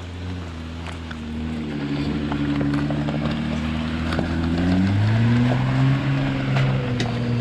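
Jeep Wrangler Rubicon JL crawling up a gravel trail in low range and passing close by. Its engine runs steadily, then rises in pitch and grows louder about five seconds in as it pulls past. Stones click under the tyres.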